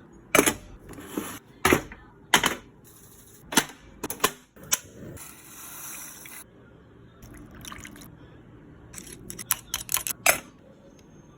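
Eating at a table of steamed clams: hard shells and tableware clacking in sharp, uneven knocks, with wet, liquid sounds and a short hiss a few seconds in.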